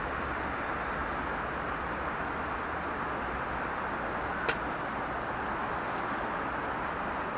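Steady city street traffic: a continuous wash of passing cars. About four and a half seconds in comes one sharp click, and a fainter one about a second and a half later.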